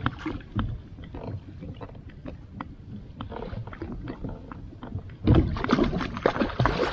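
Scattered knocks and clicks of rod, reel and gear on a plastic fishing kayak while a hooked kokanee salmon is played. About five seconds in, a louder stretch of splashing and rattling begins as the fish is brought to the boat and netted.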